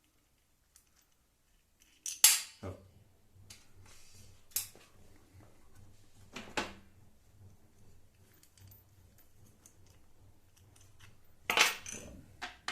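Sharp clinks and knocks of metal hardware being handled on a router table: a few single strikes a couple of seconds apart, then a busier cluster near the end. The first two seconds are dead silent.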